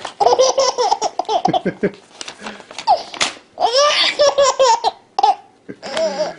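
A baby laughing hard in several long bouts, set off by paper being torn in front of it, with the short rasp of tearing paper between and under the laughs.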